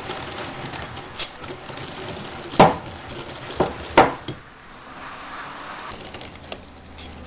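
A whisk stirring a thick custard base of egg yolks, sugar and flour in a glass bowl, knocking sharply against the glass four times in the first four seconds.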